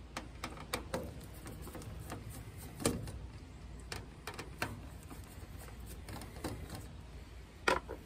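Irregular small clicks and taps of a screwdriver and fingers on a heat pump pool heater's control board as it is unscrewed and handled for replacement. The loudest clicks come about three seconds in and near the end.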